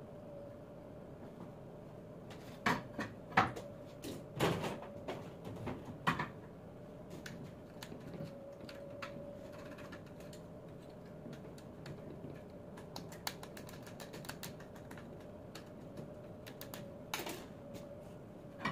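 Metal clicks and knocks of hand tools and small parts being worked on a 24-volt alternator held in a bench vise, with a burst of sharp knocks in the first few seconds and lighter scattered ticks after. A steady hum runs underneath.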